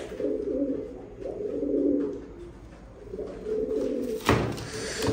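Pigeons cooing: several low coos in a row, each about a second long. A sharp knock cuts in about four seconds in.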